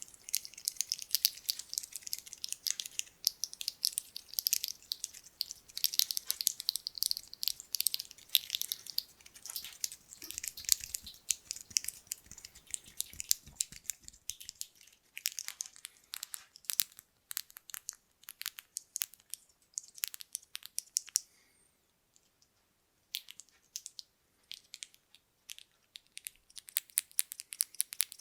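Small buttons clicking and rattling against each other at close range, first in quick dense clusters, then as sparser sharp clicks with a short pause about three-quarters of the way through.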